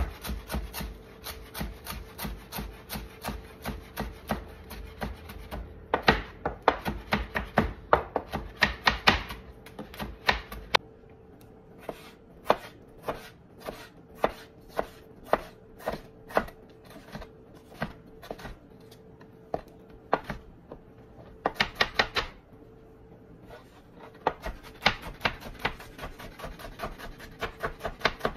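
Chef's knife chopping on a plastic cutting board, first through fresh herbs and then slicing and dicing a tomato: quick runs of knife strikes, about four a second, with a slower, sparser stretch in the middle.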